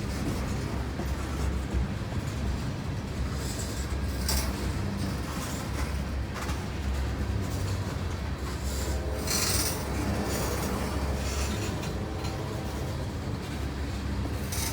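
Norfolk Southern freight train's cars rolling past, a steady low rumble of wheels on rail. Two brief high-pitched wheel squeals, about four and nine and a half seconds in.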